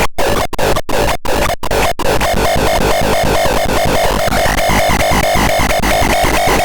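Synthesizer playing a harsh, noisy electronic sound. For the first two seconds it is cut by brief silences about three times a second, then it runs on as a continuous fast-warbling texture, with a higher held tone joining about four and a half seconds in.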